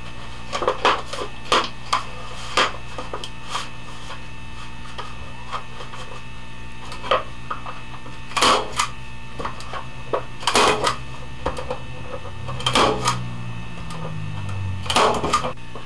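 Hand stapler driving staples through a sheet of milk-jug HDPE into a wooden frame: a series of sharp clacks, spaced irregularly a second or more apart.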